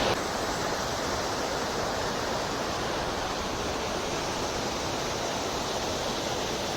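Steady rushing of a waterfall and its river.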